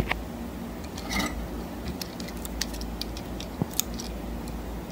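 Handling noise from small parts: scattered light clicks and ticks with a brief rustle about a second in, over a low steady hum.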